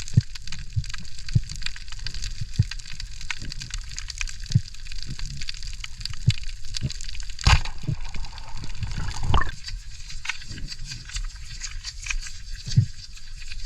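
Underwater sound: a steady fine crackle with scattered low knocks, then a loud sudden hit about halfway in followed by a couple of seconds of rising bubbling.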